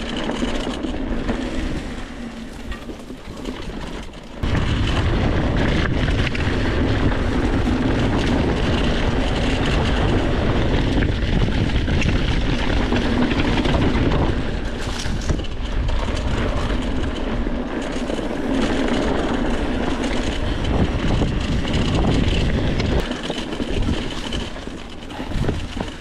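Mountain bike rolling fast down a dirt singletrack, heard on a GoPro: wind rushing over the microphone with tyre noise and bike rattle over the trail surface. The low rush drops off for a couple of seconds near the start and again shortly before the end.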